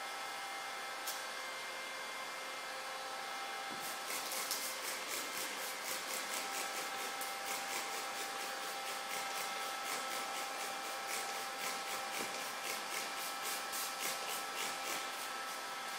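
Rapid, even scraping strokes on car side-window glass during window-tint work, about three a second, starting a few seconds in, over a steady hum.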